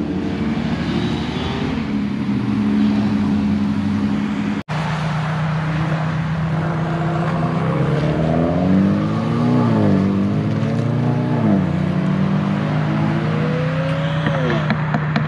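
Cars' engines running and revving as they pull through an intersection, the pitch rising and falling several times in the second half. The sound drops out for an instant just under five seconds in, and a quick run of sharp crackles comes near the end.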